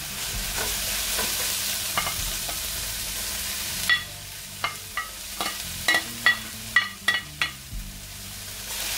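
Vegetables sizzling in hot oil in a stainless steel pan while being stirred. About four seconds in, the sizzle drops as more vegetables go in, and a run of sharp, ringing taps follows as the wooden spatula knocks against the cutting board and the pan.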